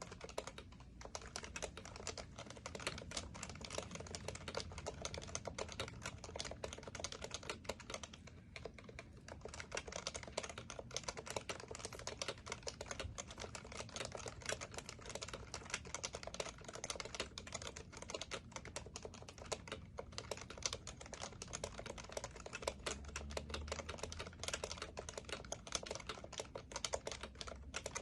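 Continuous fast typing on a Happy Hacking Keyboard Professional Classic, its Topre electrostatic-capacitive tactile switches clicking many times a second, with a brief lull about eight seconds in.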